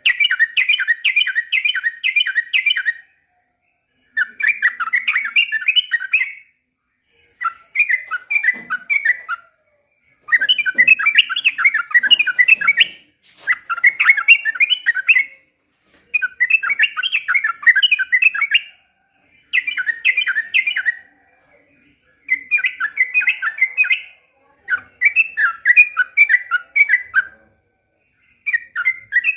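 Yellow-vented bulbul (trucukan) singing in a string of short phrases of rapid, quick-fire notes. Each phrase lasts two to three seconds, with a brief pause between them.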